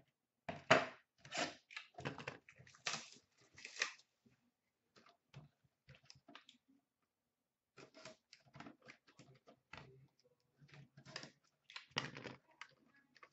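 Cardboard trading-card boxes handled on a glass counter. A quick run of rustling scrapes and knocks fills the first four seconds, followed by scattered light clicks and taps.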